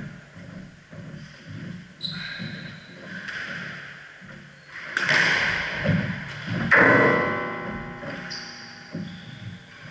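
Squash rally on a wooden court: the ball smacking off rackets and walls, players' running footsteps, and rubber soles squeaking on the floorboards, with a long, high shoe squeal about two-thirds of the way through.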